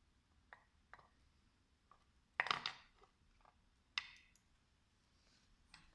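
Scattered light clicks and taps of small tools and parts being handled during soldering work on a circuit board, the loudest a short cluster about two and a half seconds in and a sharp click about four seconds in.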